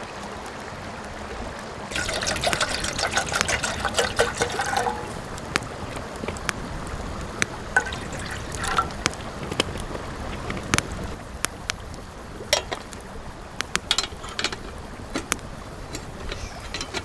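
Water poured from a plastic bottle into a metal camp kettle, with a wood fire crackling in sharp pops throughout.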